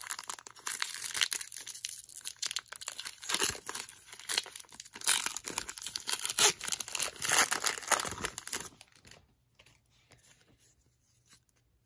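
Foil wrapper of a 2014 Topps football card pack crinkling and tearing as it is ripped open by hand, with many sharp crackles. The crackling stops about nine seconds in.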